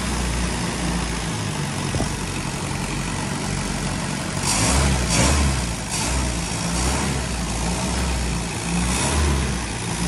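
Land Rover Series IIA's 2.25-litre four-cylinder petrol engine idling, freshly restored, with oil pressure up at about 40 psi. It swells briefly in loudness as it is revved a little around the middle and again near the end.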